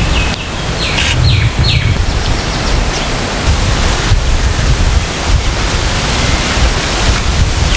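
Wind buffeting the microphone in a steady, loud rumble, with a bird chirping a quick series of short high notes in the first few seconds.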